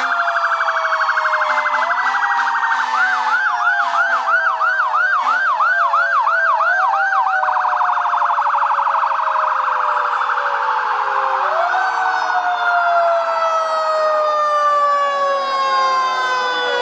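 Many emergency sirens on passing fire engines sound at once. Slow rising-and-falling wails overlap throughout, a fast yelp at about three sweeps a second runs from about three seconds in to past the middle, and a rapid buzzing warble sits underneath. A few short low horn blasts come in the first five seconds.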